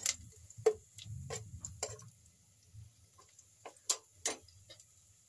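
A metal spoon knocking against the inside of an enamel cooking pot while stirring: a string of sharp clicks, several in the first two seconds, then fewer and fainter ones.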